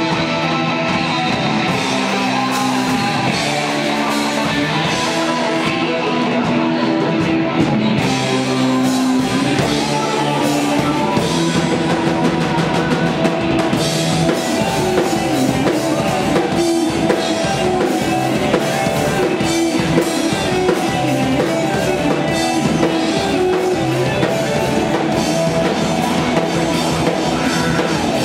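Live goth metal band playing loud: electric guitars holding chords over a drum kit. The drumming grows busier with dense cymbal hits from about halfway through.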